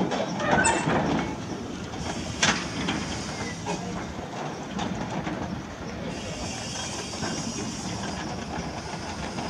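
Peckett 0-4-0 saddle-tank steam locomotive hauling a train of wagons, with the rumble and clank of the locomotive and wagons on the rails and a sharp knock about two and a half seconds in. A hiss of steam starts about six seconds in and fades near the end.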